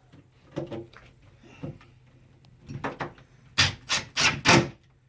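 A bifold door and its newly fitted cabinet knob being handled: a few light clicks and taps, then four loud knocks or clatters in quick succession near the end.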